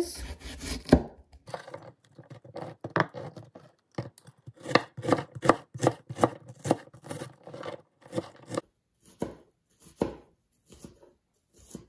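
Kitchen knife chopping an onion on a cutting board: a run of sharp, even strokes, about three a second through the middle, spacing out near the end.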